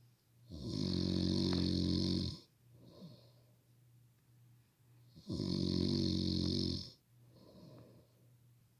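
A sleeper snoring loudly: two long snores of about two seconds each, some five seconds apart, with softer breathing between them.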